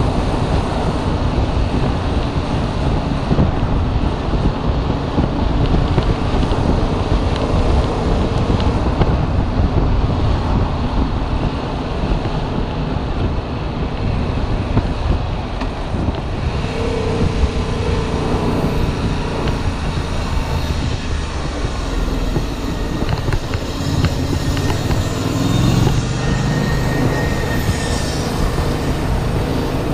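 Yamaha MT-07's parallel-twin engine running under a rider at road speed, mixed with steady wind rush over the camera microphone, as the bike slows from about 54 to 35.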